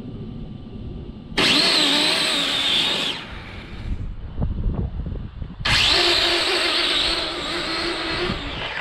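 Electric XTM RC drag car on a 6S battery launching down the strip, its brushless motor whining loudly. The whine comes twice, starting abruptly each time: first for under two seconds, then for nearly three seconds a few seconds later.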